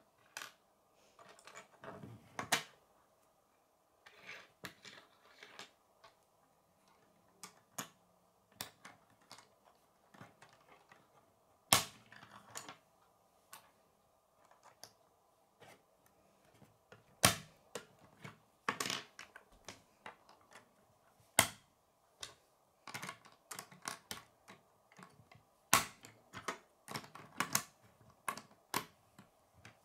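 K'nex plastic rods and connectors clicking as they are snapped together and set down on a wooden tabletop: irregular sharp clicks, some much louder than others, over a faint steady hum.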